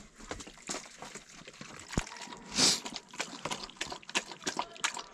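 Water poured from a bottle into a small plastic dog bowl, then a Belgian Shepherd mix lapping it up with quick, even laps, about five a second, from about three seconds in.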